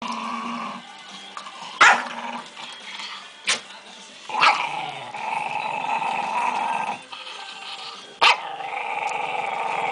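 Angry Yorkshire terrier growling to guard her new bed, with four sharp barks about two, three and a half, four and a half and eight seconds in, and long unbroken growls between them.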